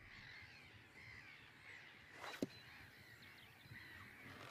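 Faint bird calls chirping in the background of an otherwise near-silent scene, with a single short knock about two and a half seconds in.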